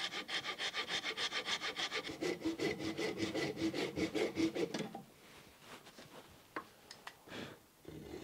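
Fine-toothed hand saw cutting wood in quick, even strokes, about five a second, as the shoulders of a tenon are sawn. The sawing stops about five seconds in, leaving a few softer strokes and light clicks.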